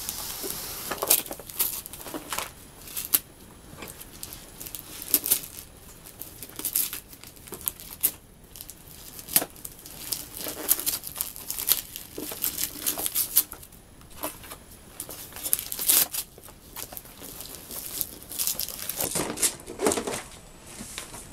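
Christmas wrapping paper being torn off a gift box by hand, in many irregular rips and crinkles.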